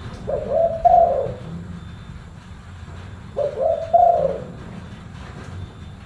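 Spotted dove cooing: two deep phrases about three seconds apart, each a quick run of a few coos ending on a longer, falling note.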